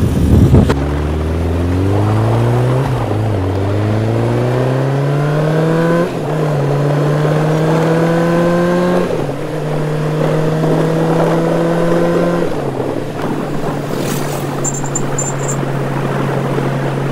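Motorcycle engine accelerating up through the gears: its pitch climbs and drops back at each of four upshifts, about three seconds apart, then settles to a steady cruise. Wind buffets the microphone at the start.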